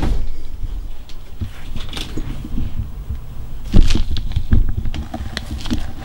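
A front-loading washing machine's plastic detergent drawer being pulled open, with a few knocks and clicks over low rumbling handling noise. The loudest knock comes about four seconds in.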